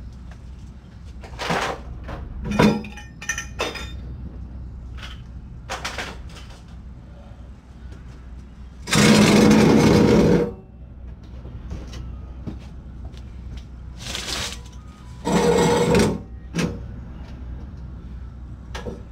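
Old steel muffler and exhaust pipe being dragged out from under a pickup truck, clanking and scraping on pavement. There are a few sharp metal knocks in the first few seconds, then two long loud scrapes with a ringing metallic tone, about nine and fifteen seconds in.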